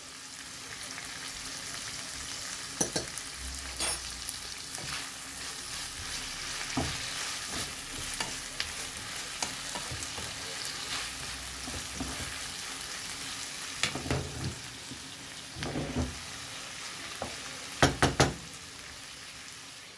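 Sliced onions, capsicum and cabbage sizzling in a frying pan as they are stir-fried, with a steady frying hiss. A spatula stirs and scrapes them, knocking against the pan every few seconds, loudest near the end.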